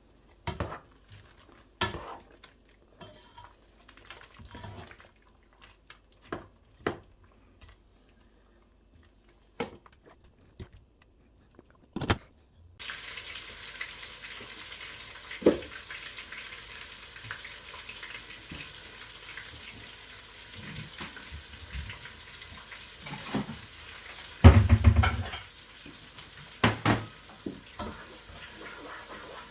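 Kitchen utensils and pots clinking and knocking in short separate hits. About halfway the steady sizzle of food frying in a pot starts suddenly, with a spoon scraping and stirring through it and a heavy knock near the end.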